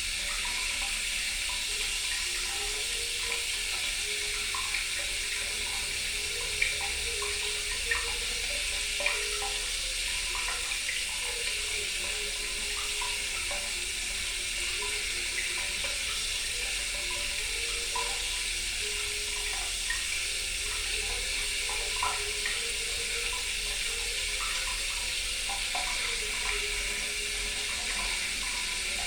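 Water running steadily like a tap into a sink, with many small bubbling plinks through it and a few louder drips.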